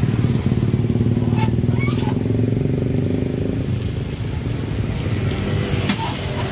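A motor running with a steady low rumble, weakening a little after about three and a half seconds, with a few sharp clicks about a second and a half and two seconds in and again near the end as a cup sealing machine is worked.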